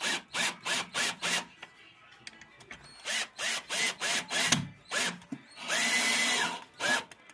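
Power drill run in short trigger pulses, its pitch rising at the start of each, with a pause in the middle. Near the end it runs steadily for about a second, then gives one last short pulse.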